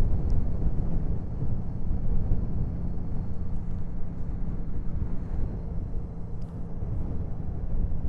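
2014 Honda Valkyrie's flat-six engine running steadily while the motorcycle cruises, mixed with wind rushing over the microphone.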